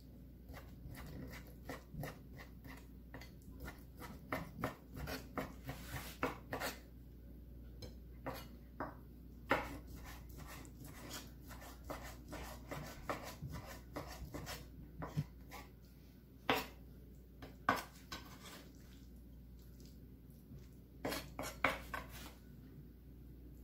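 Kitchen knife chopping raw peeled shrimp on a wooden cutting board: a quick run of light knocks for about the first seven seconds, then slower, scattered taps with a few louder knocks.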